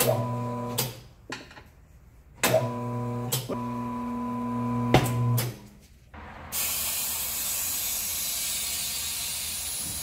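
A motorcycle tire changer's turntable motor hums as it turns the wheel to mount a new front tire on the rim. It runs twice for a few seconds, with clicks and knocks between the runs. About two-thirds of the way in, a steady hiss takes over.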